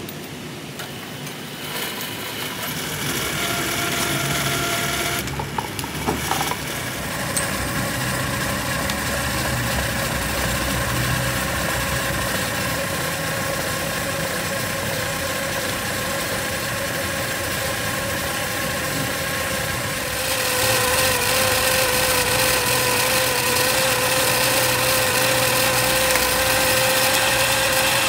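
Workshop machine running steadily with a whine of several steady tones; it grows louder about two-thirds of the way through.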